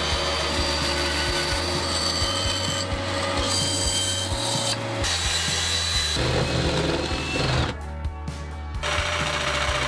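Bandsaw cutting a circle out of a plywood sheet, a steady run with the blade's cutting noise. About eight seconds in, the sound changes to a drill boring a flat-bottomed hole into plywood with a Forstner-style bit.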